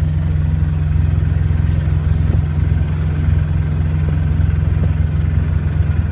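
An engine running steadily close to the microphone, a loud, even low drone.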